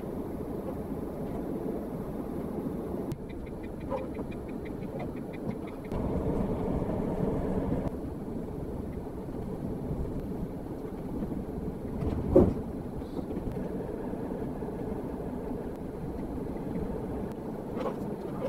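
Camper van driving, heard from a dashcam inside the cab: steady engine and tyre rumble, with a short run of faint ticks a few seconds in. A single sharp knock about twelve seconds in is the loudest sound.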